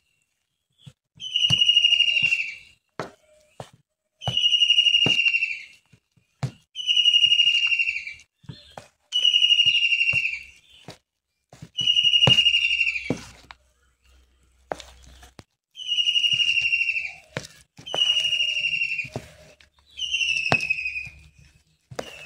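A high whistle-like tone, falling slightly in pitch, sounds eight times, each lasting over a second and spaced two to four seconds apart. Faint clicks fall between them.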